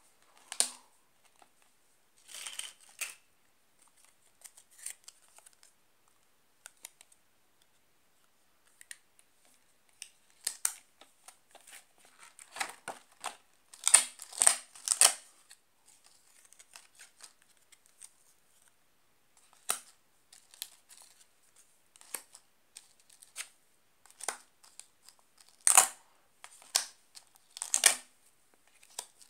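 Small paper number cards being handled and laid down on a binder page: irregular short taps, clicks and rustles, thickest in the middle and again near the end.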